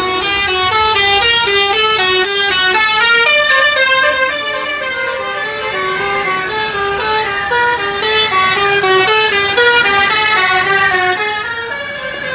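Musical horn of a Sri Lankan private bus playing a fast tune, one short note after another stepping up and down, with bus engines running underneath.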